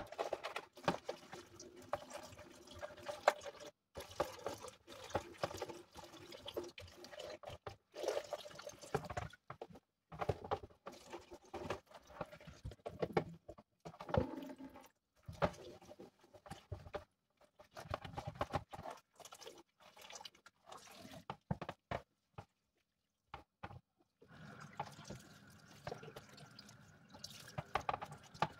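Hands washing a clear plastic container in a kitchen sink: water sloshing and the plastic rubbing and knocking against the sink in irregular bursts, with a brief pause a little after the middle.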